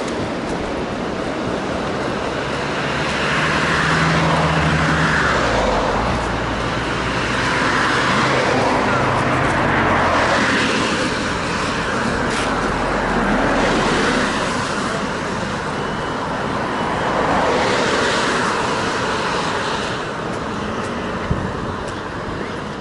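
Cars passing on the road beside the footpath. About four vehicles go by one after another, each a swell of tyre and engine noise that rises and fades over a steady traffic background.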